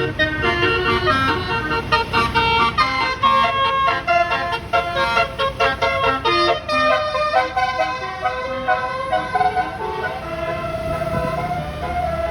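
Tour bus's basuri horn, a multi-tone electric horn set with roof-mounted trumpets, playing a melody of quick stepped notes. Near the end it settles into longer held notes.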